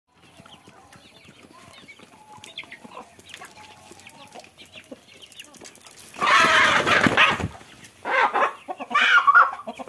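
Hens clucking softly while they feed, then from about six seconds in a chicken squawking loudly in several bursts, the alarm of a hen being grabbed and caught.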